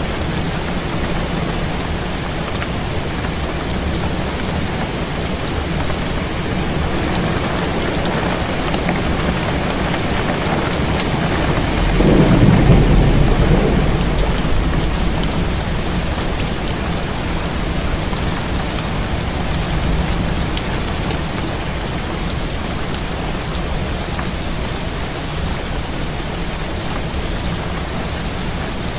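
Heavy rain falling steadily on a window, with a low roll of thunder about twelve seconds in that swells and fades over a few seconds.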